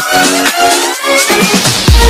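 Background electronic dance music. The bass and kick drum drop out while rising synth tones build, and the full beat comes back in near the end.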